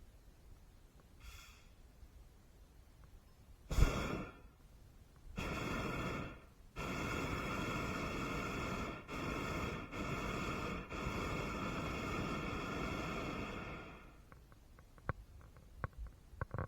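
Hot air balloon's propane burner firing in blasts: a short one about four seconds in, then a long burn of about eight seconds with a few brief breaks, which stops a couple of seconds before the end.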